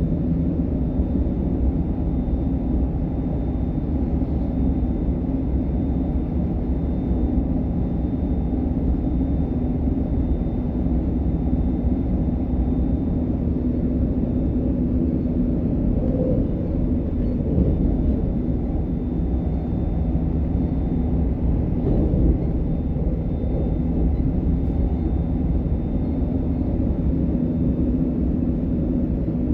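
A DB Class 425 electric multiple unit running steadily between stations: a continuous rumble of wheels on rail and running gear, with a faint steady high whine from the traction equipment.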